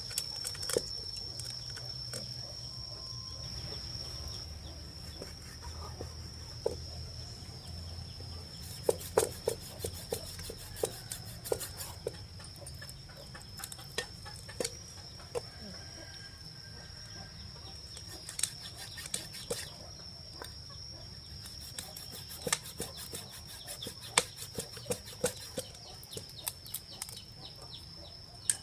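Hands pressing and arranging a raw whole chicken in a stainless steel pot, with scattered sharp clicks and taps in clusters, over a steady high-pitched drone.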